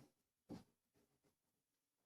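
Two faint knocks about half a second apart, right at the start; otherwise near silence.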